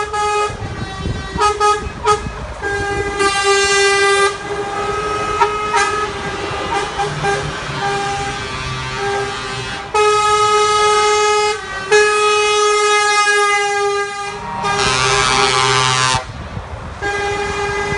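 Convoy of lorries passing slowly with their diesel engines running, sounding air horns in repeated long blasts, one after another. A rising and falling horn comes near the end.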